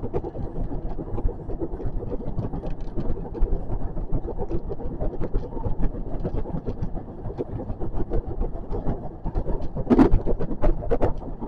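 JR West 521 series electric train running, heard from the driving cab: a steady rumble of wheels on rail with many small clicks and rattles, and a louder clatter about ten seconds in.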